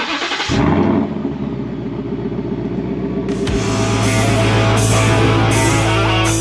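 Intro rock music with guitar, rapid and low at first, then opening out into a fuller heavy-rock sound with held notes about three and a half seconds in.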